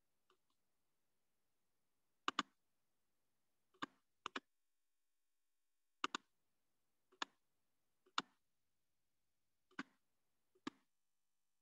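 Computer mouse button clicking, single clicks and quick double-clicks every second or so, about a dozen in all, as items in a software tree menu are selected.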